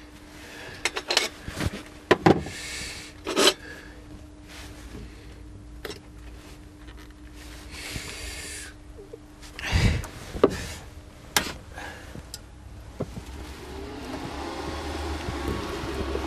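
Clicks, knocks and short rustles from handling steel plates and welding gear, over a faint steady hum. A louder low hum sets in near the end.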